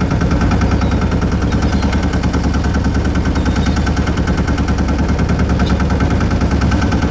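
A boat's engine running steadily at close range, with a fast, even pulsing beat.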